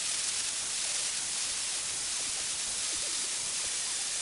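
Angle grinder's abrasive disc grinding a steel rebar blank: a steady, high rushing noise with no break.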